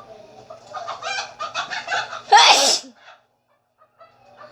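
A person sneezing loudly: a quick run of short stuttering breaths builds up over about a second and a half, then one loud sneeze about two and a half seconds in, lasting about half a second.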